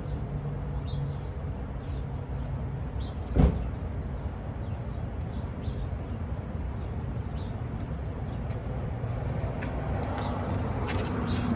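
Steady low background rumble with one sharp knock about three and a half seconds in, and light clicking and rustling near the end.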